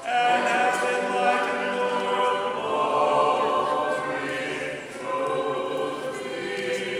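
Choir singing an unaccompanied Orthodox church hymn, with a brief break between phrases about five seconds in.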